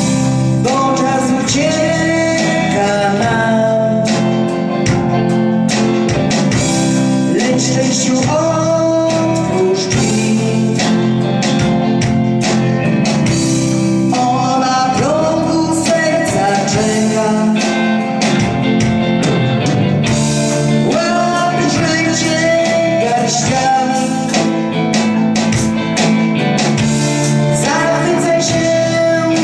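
Music: a song with singing over instrumental backing and a steady beat.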